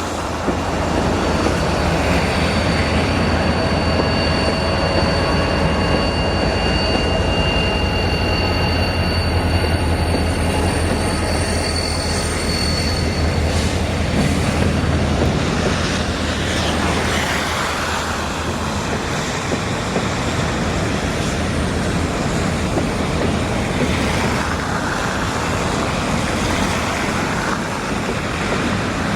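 Freight train rolling past, a steady rumble of wheels on rail with a low drone. Thin, high-pitched wheel squeal rings for the first half and fades out about halfway through.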